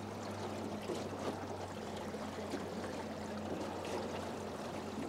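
Small waves lapping and trickling against the hull of a jon boat, over a steady low hum.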